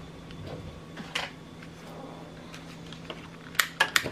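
Quiet kitchen background: a steady low hum with a faint click about a second in, then a quick run of sharper clicks and light taps near the end.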